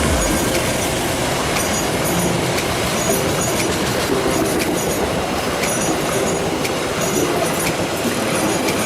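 A passing train: a steady rumble of wheels running on rails, with short high-pitched wheel squeals recurring every second or so.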